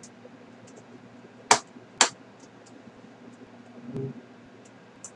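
Two sharp plastic clicks about half a second apart: the retaining clips of a Power Mac G5 memory slot snapping shut as a RAM stick is pressed home.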